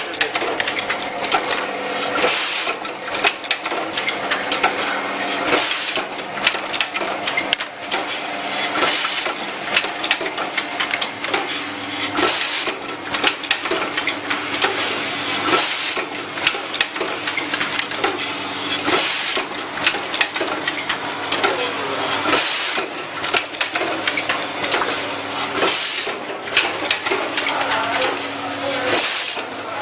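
Automatic keyboard-switch assembly and test machine running: a dense stream of small mechanical clicks and clatter over a steady hum, with a louder cycle coming round about every three seconds.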